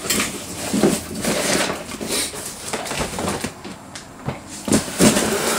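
A large cardboard shipping box being handled and shifted about: irregular scraping and rubbing of cardboard with several dull knocks.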